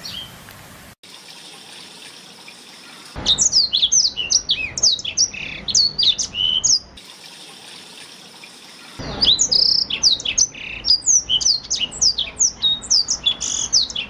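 Black-throated canary (blackthroat) singing, a recording used as master song to train canaries. Two fast runs of chirps and down-slurred whistled notes, each about four seconds long, start a few seconds in and stop abruptly.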